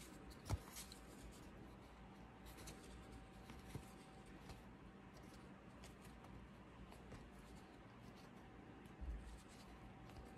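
Faint handling of a stack of glossy trading cards: light sliding and scattered ticks as cards are thumbed from the back of the stack to the front, with a sharper click about half a second in and a soft low thump near the end. A faint steady hum runs underneath.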